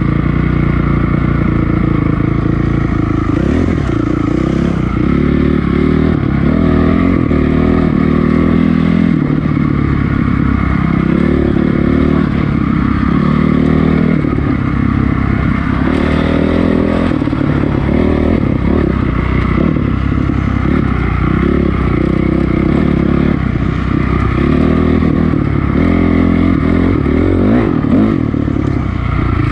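2006 Honda CRF450R's single-cylinder four-stroke engine running as the dirt bike is ridden, its pitch repeatedly rising and falling with throttle and gear changes.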